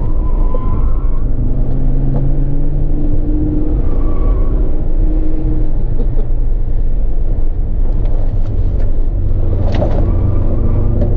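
Car engine running hard on a fast lap of a race circuit, heard from inside the cabin with road noise. The engine note rises and falls with throttle and gear changes.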